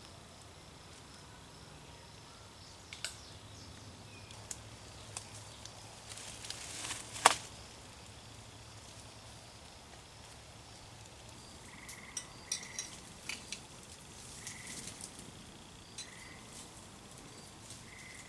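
Quiet night-time woodland: scattered faint clicks, then a brief rustle ending in one sharp snap about seven seconds in. In the second half a short high chirp repeats every second or two, with a few more light clicks.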